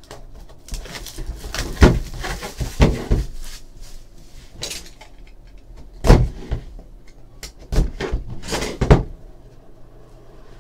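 A shrink-wrapped cardboard box of trading cards being unwrapped by hand: plastic wrap crinkling, a box cutter slitting it, and several sharp knocks as the box is handled and set down on the table.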